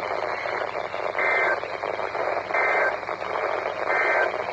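NOAA Weather Radio sending the Emergency Alert System end-of-message data bursts over radio static: three short two-tone data chirps about a second and a half apart, marking the end of the weekly test.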